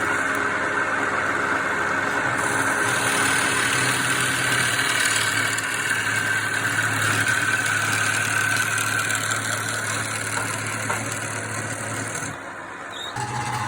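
A woodworking power machine running steadily with a low motor hum. A brighter hiss comes in about two seconds in and falls away shortly before the end.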